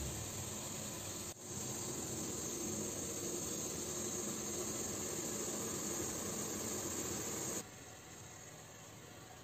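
Steady hiss of an aluminium steamer pot steaming on a gas stove while a steamed sponge cake cooks. The hiss breaks off for an instant about a second in, then drops away suddenly near the end.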